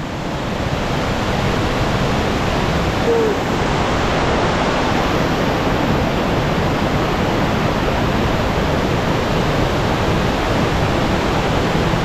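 A waterfall rushing steadily, a dense even sound of falling water that grows louder over the first second and then holds.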